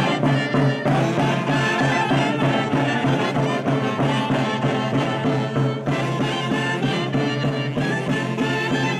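An Andean orquesta típica playing a lively tune: saxophones and clarinets carry the melody over a harp, with two hand-held bass drums beating a steady rhythm.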